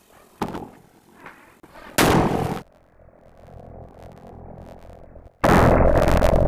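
Sodium metal reacting with elephant-toothpaste foam (hydrogen peroxide) inside a covered plastic bucket: a sharp bang about two seconds in, then a violent explosion near the end that carries on as a loud, continuous crackling blast of fire and sparks.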